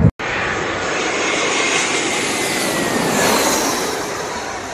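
Jet airliner's engines passing low overhead on landing approach: a steady rushing noise with a whine that falls in pitch as it goes by. It is loudest about three seconds in, then fades.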